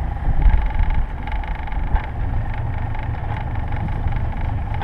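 Small boat's outboard motor running steadily as the boat moves slowly, with wind buffeting the microphone in the first second.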